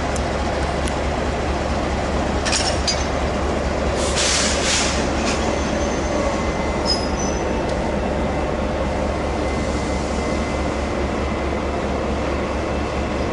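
A freight train hauled by two Taiwan Railway E200-series electric locomotives rolling past, a steady rumble of wheels on rail with brief high-pitched wheel squeals about two to five seconds in.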